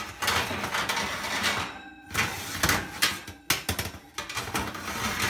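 Wire oven rack slid along its runners inside the oven: metal scraping and rattling for about the first two seconds, then a string of sharp clanks as it is shifted and set in place.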